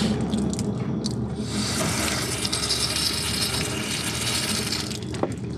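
Garden-hose water spraying into a jet boat's transom drain hole and gushing and splattering back out onto the pavement, a steady hiss of spray. The water is flushing drilling chips and debris out of a new boat's bilge.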